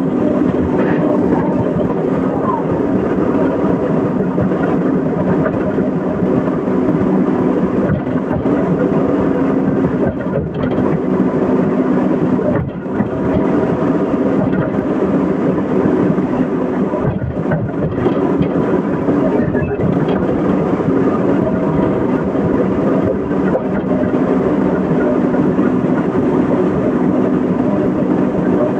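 Excavator's diesel engine running steadily, a continuous drone with a few brief dips in level.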